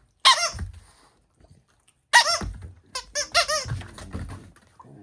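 A dog's squeaky toy squeaking as a French bulldog bites and squeezes it: one squeak near the start, another about two seconds in, then a quick run of about four squeaks. Low rustling and thumping from the dog follows.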